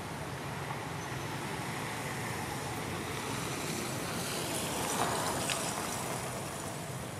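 Steady outdoor background noise, a low rumble with a hiss over it, with a brief louder rustling about five seconds in and one sharp click.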